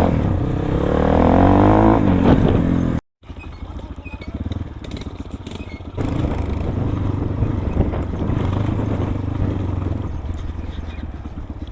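Motorcycle engine running, rising in pitch over the first two seconds as it accelerates. It cuts out for a moment about three seconds in, then runs on steadily, a little louder again from about six seconds.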